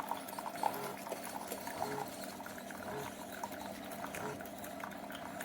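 Single-serve pod coffee maker brewing: hot coffee streaming into a glass mug with steady liquid noise and small irregular gurgling pops.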